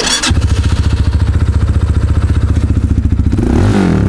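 Falcon Speedfire 250's 250 cc single-cylinder engine starting, catching almost at once and idling evenly, then revved up and down a few times near the end. It runs cleanly, without any odd noises.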